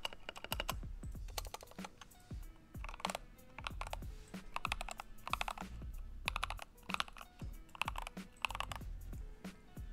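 Typing on a Tecware Phantom Elite Plus mechanical keyboard: a continuous run of quick key clacks with a solid, deep sound.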